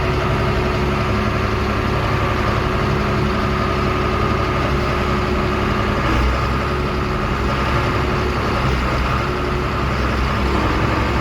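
Heavy farm machinery engine running steadily at a constant speed, a low hum with a faint steady whine above it.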